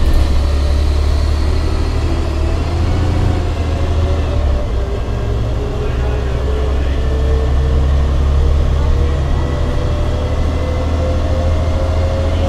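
Interior of an MCW Metrobus double-decker under way: a steady, deep engine drone, with a thinner whine that climbs slowly in pitch as the bus runs on.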